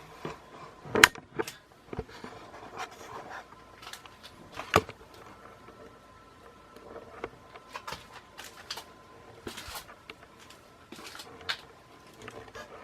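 Handling noises: scattered knocks, clicks and rustles of objects being moved, with sharp knocks about a second in and again near five seconds. A faint steady hum runs underneath.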